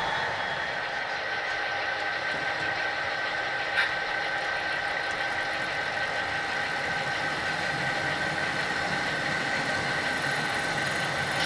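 Diesel locomotive engine sound running steadily at low throttle, played by an HO scale model locomotive's DCC sound decoder, with a single click about four seconds in.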